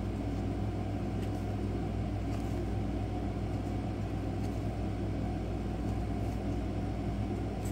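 Steady low rumble with a constant hum underneath, from a running motor or machine in the background, with a few faint light ticks now and then.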